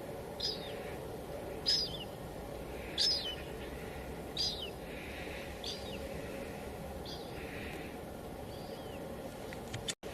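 Light drizzle as a steady hiss, with a bird repeating a short call that falls in pitch about every second and a half, seven times, the last calls fainter. The sound cuts out for an instant near the end.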